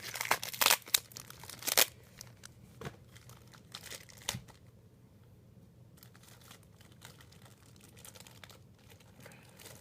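Plastic toy packaging crinkling and tearing as it is pulled open by hand. The crinkling is loudest in the first two seconds, with a couple of sharp crackles around three and four seconds in, then only faint rustling.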